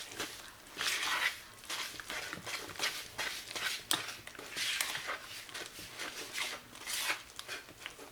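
Mixing a thick rice-flour and coconut-milk batter in a bowl: irregular scraping and swishing strokes with a few sharp clicks.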